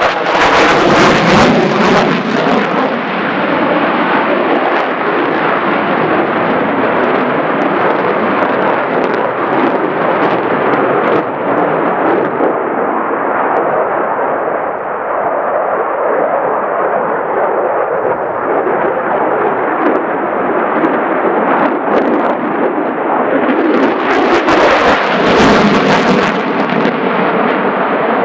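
F-35A's Pratt & Whitney F135 afterburning turbofan, loud jet noise from a fighter in a flying display. It crackles sharply as the jet passes close in the first two seconds or so and again about 24 seconds in, and turns duller and more distant in between, with the afterburner lit near the end.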